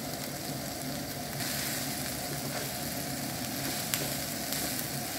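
Vegetables sizzling in hot oil in a frying pan as a heap of shredded cabbage is stirred in with a wooden spoon; the sizzle gets louder about a second and a half in. One sharp tap near four seconds in, over a low steady hum.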